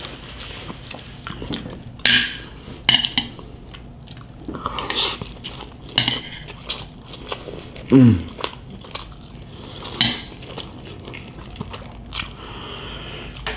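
Close-up biting and chewing of crispy deep-fried pork (crispy pata and lechon kawali), with sharp crunches of the crackling skin at irregular intervals. A brief falling vocal sound comes about eight seconds in.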